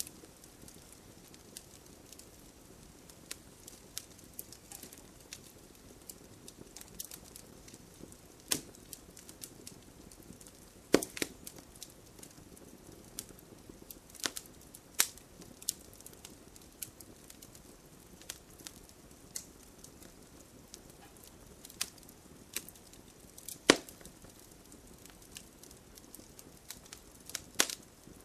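Wood fire crackling, with irregular sharp pops over a low steady hiss; the loudest snaps come about eleven, fifteen and twenty-three seconds in.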